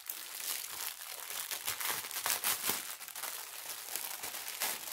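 Clear plastic packaging around strips of bagged diamond painting drills crinkling and crackling steadily as it is handled and pulled about. The sound dies down just before the end.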